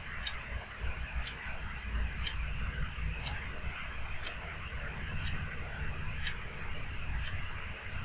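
Spoon stirring puffed rice in a steel pot: a dry, steady rustle of the crisp grains being turned over. A faint tick sounds about once a second throughout.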